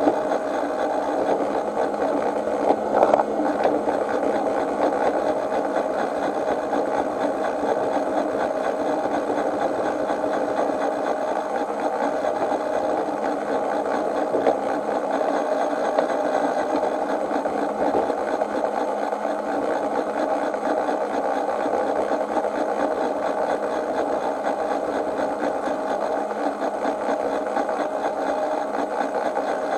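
Miniature railway train running steadily along its track, a continuous mechanical whirr of wheels and running gear with a brief clatter about three seconds in.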